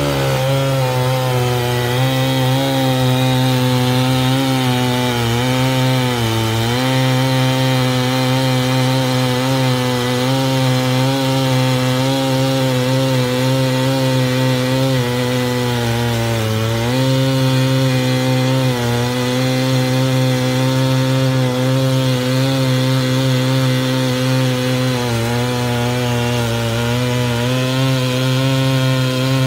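A large chainsaw on a homemade chainsaw mill runs at full throttle, cutting through a big stump. Its engine note sags twice as the chain bogs under load, about six seconds in and again about seventeen seconds in, and picks back up each time.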